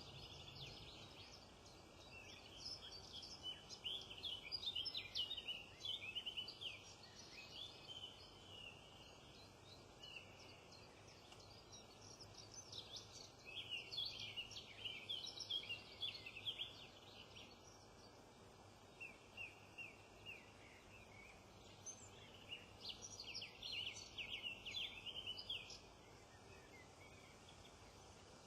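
Small songbirds singing and twittering in quick high notes, in several bursts of a few seconds each, with short gaps between them.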